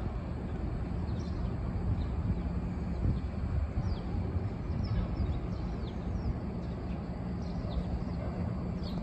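A steady low rumble with a faint machinery hum, with short, high, falling bird chirps scattered through it.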